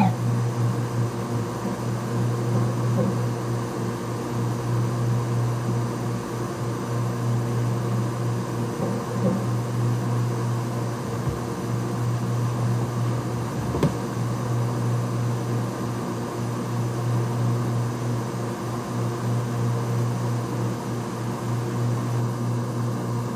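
Steady low mechanical hum of a fan or motor running, with one faint click about fourteen seconds in.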